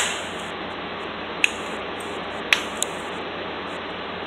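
Hammer blow on a hand impact driver fading out at the start, as a stuck stator screw is being struck loose. A few light metal clicks follow as the driver is reset on the screw.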